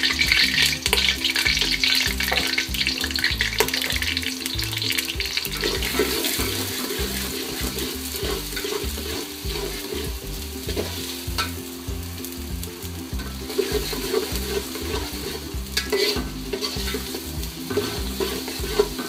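Sliced onions sizzling in hot oil in an aluminium pot, loudest just after they go in, with a metal spatula stirring and scraping against the pot.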